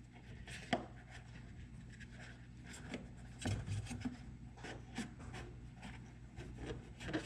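Rubber dust boot being pressed by hand around its rim onto the back of a headlamp housing: scattered faint rubbing and light clicks of rubber on plastic.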